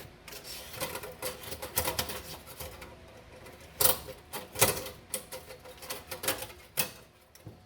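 Wire being fed down a hole in a car body's sheet metal, clicking and scraping irregularly, with a couple of sharper knocks about four seconds in.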